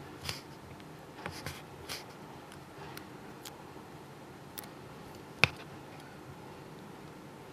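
Faint clicks and taps of small metal pliers handling and creasing a tiny paper flag, with one sharp, much louder click about five and a half seconds in.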